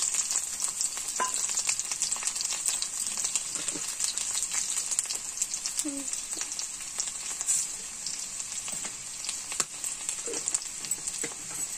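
Chopped garlic sizzling in hot oil in a kadai: a steady hiss with scattered small crackles.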